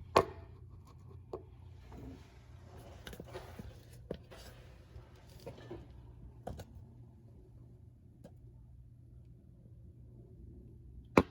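Scattered knocks and clicks from handling parts at the rear suspension while the upper spring isolator is checked. One sharp knock comes right at the start and another just before the end, with some rustling in between, over a steady low hum.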